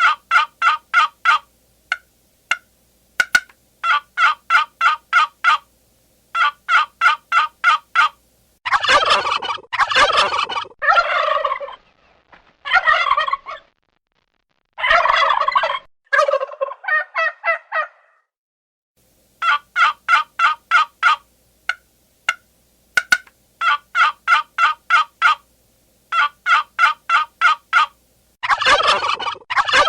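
Domestic turkeys gobbling: repeated short, rapid rattling gobbles of about seven or eight pulses a second, each lasting a second or two, with clean pauses between them. Longer, harsher gobbling calls come about a third of the way in, again around the middle, and near the end.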